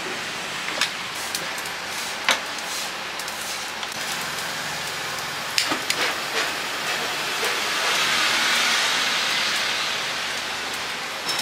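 Steady hiss of a gas wok burner, swelling a little near the end, with a few sharp clicks, including a lighter clicking about halfway through.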